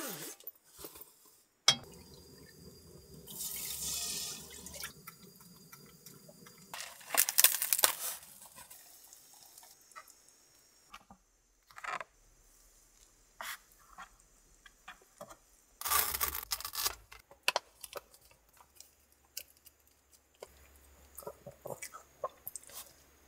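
Hot water poured into a cup of instant ramen, with clinks and rustles as the cup and lid are handled.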